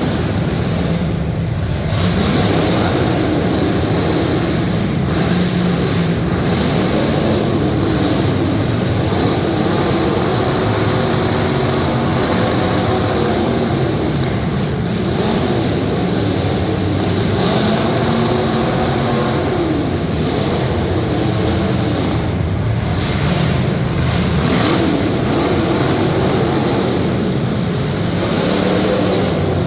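Several demolition derby cars' engines running and revving, their pitch rising and falling again and again under a steady mechanical din.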